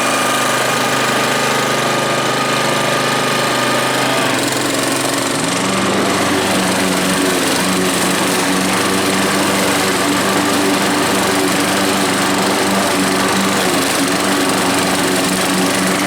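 Honda HRX537 self-propelled lawnmower's single-cylinder four-stroke petrol engine running steadily, its note changing about four to five seconds in.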